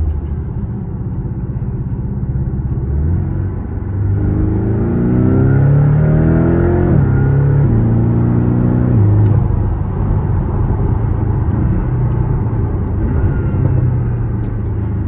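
Porsche 718 Cayman's 2.0-litre turbocharged flat-four heard from inside the cabin. It pulls hard from about four seconds in, its note rising through the gears, with a gear change near seven seconds and another near nine, then settles back to a steady cruise.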